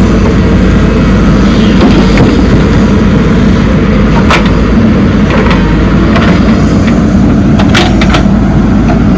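Diesel engines of a JCB backhoe and a tractor running steadily while soil is loaded, with a few sharp knocks about four, five and eight seconds in.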